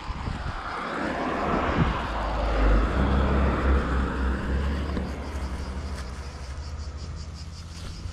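Cars driving past on the road, their tyre and engine noise swelling to a peak about three seconds in and then slowly fading.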